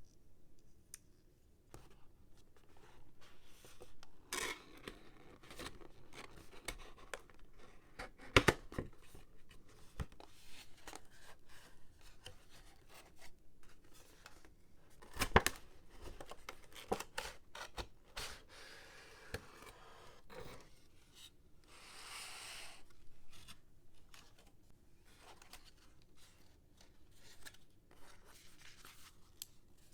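Toy packaging being opened and handled by hand: cardboard and plastic rustling, tearing and clicking, with two sharp knocks about 8 and 15 seconds in.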